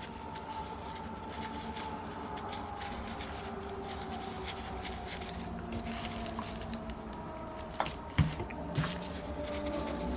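Quiet handling of small metal model-engine parts on a table, with a few light clicks about eight seconds in, over a steady background hum.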